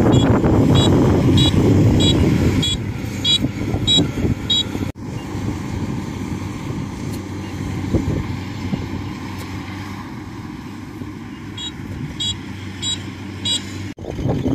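Rice combine harvester's engine running steadily, with wind buffeting the microphone in the first couple of seconds. A high chirp repeats about twice a second for the first few seconds and again near the end.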